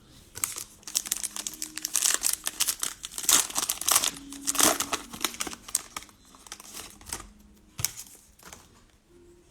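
Cellophane wrapper of a Mosaic baseball cello pack crinkling and tearing as it is opened and handled. The crackles are quick and irregular, busiest in the middle.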